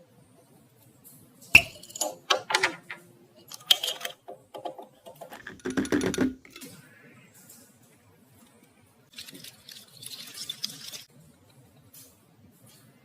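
Camping gear being handled by hand. A sharp knock comes first, then a run of clacks and a short rattle, and a rustle of fabric or packaging about nine seconds in.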